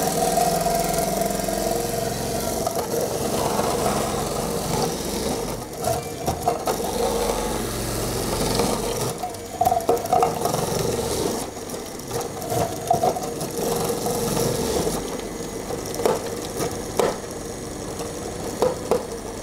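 Monsieur Cuisine Connect kitchen machine running its food-processor attachment at speed 5, the grating disc shredding carrots fed down the chute. A steady motor whir with irregular rattles and knocks.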